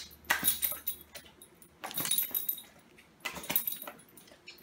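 Boxer dog crunching a mouthful of dry kibble, in three short bouts of chewing about a second and a half apart.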